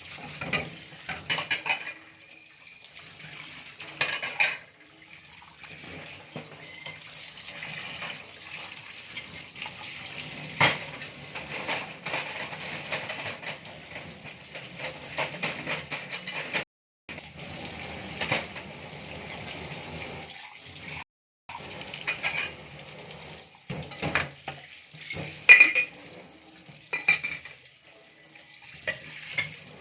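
Dishes being washed by hand in a sink: plates and cutlery clink and clatter against each other at irregular moments over a steady wash of water. The sound drops out twice, briefly, around the middle.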